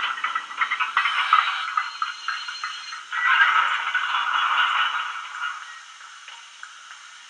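Wheeltappers DCC sound decoders in a pair of model USA tank locomotives, heard through their small speakers. Short chuffs and clanks play as the locos ease to a stop, then a steam hiss lasts about two seconds and dies away into faint ticking.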